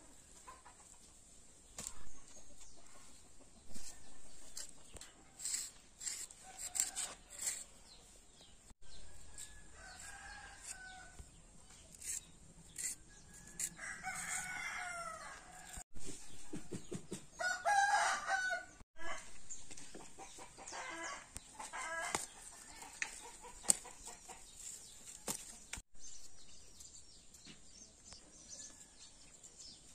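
Chicken calling: several squawks and clucks, the loudest in the middle, with scattered light clicks and knocks.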